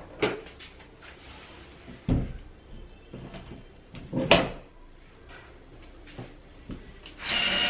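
Knocks and clunks of a metal shelf bracket and a cordless screwdriver handled against a wall, three separate knocks with the loudest about four seconds in. Near the end the cordless screwdriver whirs briefly as it drives a screw.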